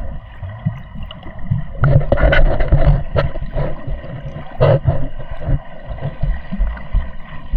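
Sea water sloshing and splashing close to the microphone, with a heavy low rumble and a few sharp splashes.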